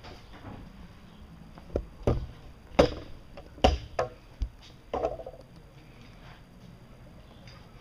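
A run of about seven sharp knocks and clicks over some three seconds, starting about two seconds in, the loudest near the middle; hard objects being handled or tapped.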